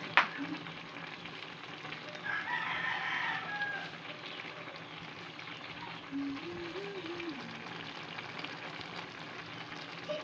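Chayote and carrot sautéing in a wok, a steady sizzle. There is a sharp knock at the very start. A rooster crows once about two seconds in, and a lower, wavering call follows a few seconds later.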